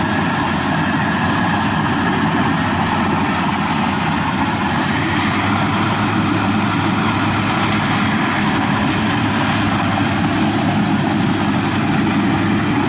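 FMWORLD WD 102pro rice combine harvester running steadily under load as it cuts and threshes standing rice, its engine and machinery a continuous drone with a faint high whine.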